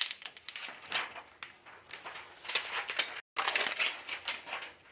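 Protective plastic film being peeled off a newly installed laptop display assembly, crinkling and crackling in irregular bursts with sharp clicks, broken by a brief silent gap about three seconds in.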